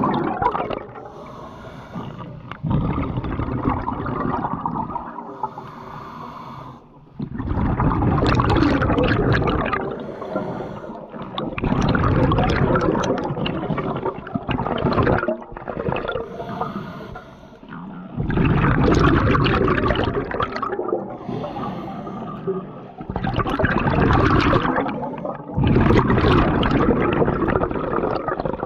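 Scuba diver breathing through a regulator underwater: every few seconds a rush of exhaled bubbles lasting two to three seconds, with quieter stretches between breaths.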